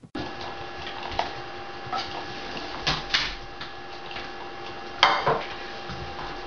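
A frying pan knocking and clattering as it is swung to toss a pancake, with a loud clatter about five seconds in, over a steady hum with a few thin tones.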